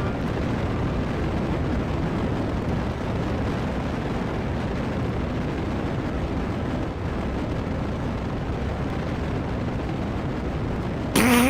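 Steady rumble of a rocket launch sound effect. A short buzzy fart sound comes near the end.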